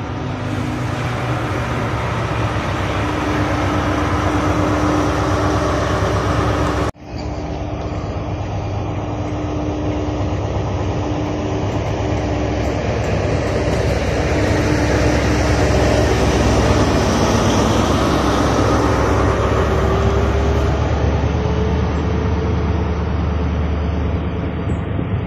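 GWR High Speed Train with a Class 43 diesel power car running at the platform: steady diesel engine note over rumble of wheels on rail, the engine note rising near the end. The sound drops out briefly about seven seconds in where two recordings are joined.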